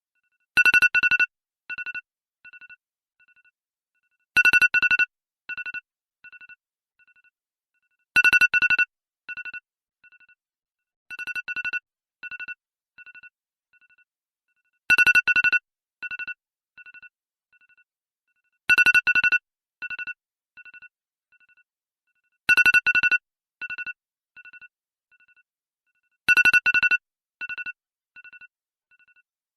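iPhone alarm tone sounding on a loop: a loud cluster of rapid, high-pitched electronic beeps followed by three fainter, fading echoes of it, the cycle repeating about every four seconds.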